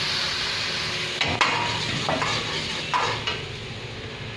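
Oil sizzling in a cooking pan as it is stirred, with about five sharp knocks and scrapes of a utensil against the pan over the first three and a half seconds; the sizzle eases off near the end.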